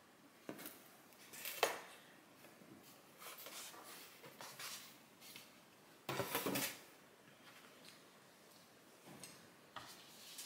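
Handling noises as a cross-stitch project is put down and the next one picked up: scattered knocks and clicks with some rustling, the loudest knock about one and a half seconds in and a short cluster of clatter about six seconds in.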